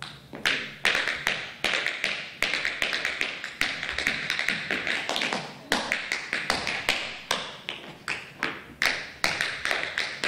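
Tap shoes striking a wooden stage floor in a solo tap routine: quick, sharp taps several times a second, with no music behind them.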